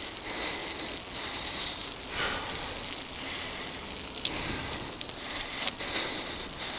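Mountain bike rolling fast on dirt singletrack: a steady crackling rush of tyres on packed dirt and grit mixed with wind, with a couple of sharp clicks from the bike over bumps.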